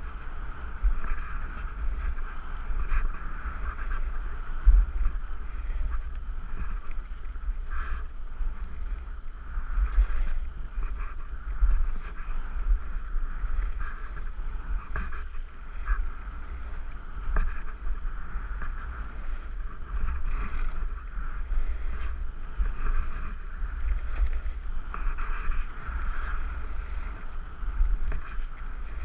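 Skis sliding and scraping over packed snow on a downhill run, with short louder scrapes now and then, under a steady low rumble of wind on the camera's microphone.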